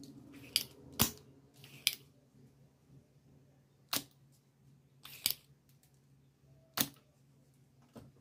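Several sharp clicks and snaps of a spring-loaded desoldering pump being cocked and fired while a resistor leg is desoldered from a TV circuit board.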